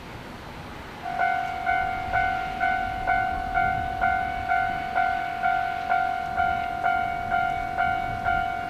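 Railway level-crossing warning bell starting about a second in and ringing a steady, clanging tone about twice a second, each strike sharp and then fading: the signal that a train is approaching.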